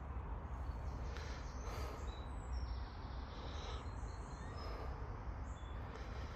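Wind buffeting the microphone as a steady low rumble, with a few faint, brief bird chirps.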